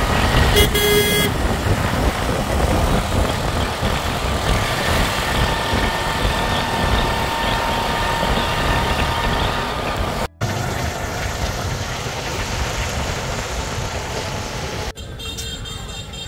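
Engine and road noise of a moving, crowded small passenger vehicle heard from its rear step. A horn toots briefly about half a second in, and another toots near the end.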